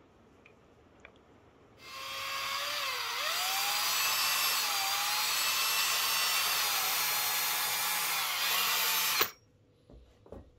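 Electric drill spinning a paddle mixer in a bucket of epoxy resin. The motor starts about two seconds in, runs steadily with its pitch wavering a little, and cuts off suddenly near the end, followed by a couple of light knocks.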